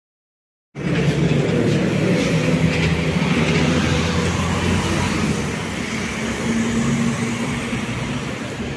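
City street traffic: a car running past close by, with other vehicles' engines and tyres at a junction. It cuts in abruptly about a second in and eases off a little toward the end.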